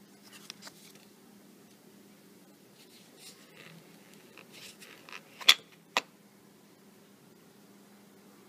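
Light handling rustles of a paper certificate card and a coin case, then two sharp clicks about half a second apart, the first louder, as the silver coin's plastic capsule is pressed down into its presentation box insert. A faint steady hum runs underneath.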